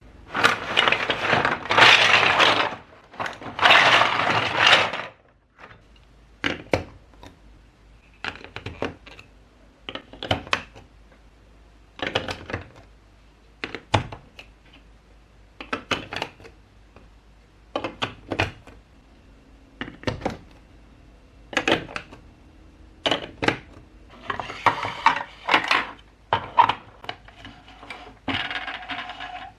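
Building blocks handled during assembly: two long rattles of loose blocks in the first five seconds, then short clusters of clicks as pieces are fitted together, about every two seconds.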